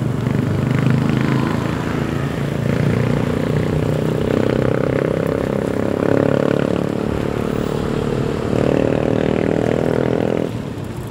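Street traffic: small motorcycle and motorcycle-tricycle engines running close by, steady and fairly loud, easing off about ten and a half seconds in.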